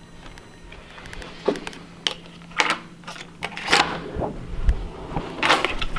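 Hotel room door being unlocked with a key card and opened: a string of sharp clicks and clacks from the lock and handle, a dull thump about halfway through, and a longer clatter near the end.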